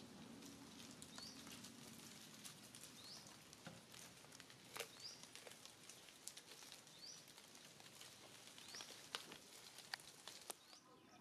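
Faint outdoor quiet in which a bird repeats a short rising chirp about every two seconds, with a few scattered soft clicks and rustles.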